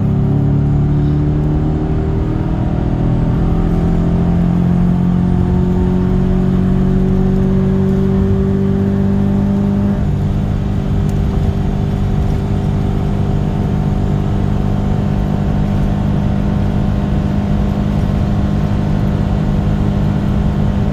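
Chevy Silverado's LS V8 engine held at high revs while driving in second gear, its pitch climbing slowly for the first half, then changing about halfway through and holding steady. The 200,000-mile engine is one the owner says has bad lifters and builds no oil pressure at idle.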